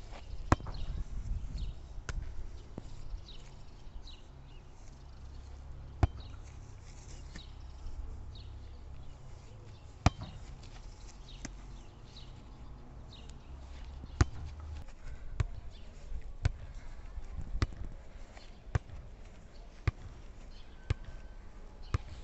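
Volleyball bumped off the forearms, each contact a sharp slap: a few at first, then about one a second in the later part. Faint bird chirps and a low rumble lie underneath.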